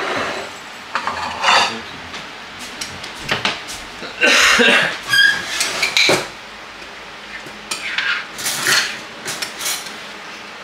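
A spoon scraping and clinking against a glass baking dish and ceramic plates as casserole is served out, in irregular bursts. The longest and loudest scrape comes about four seconds in, followed by a few short ringing clinks.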